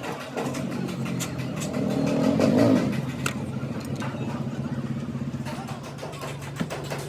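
Engine running with a fast, even beat, rising briefly about two to three seconds in and then settling back to a steady run.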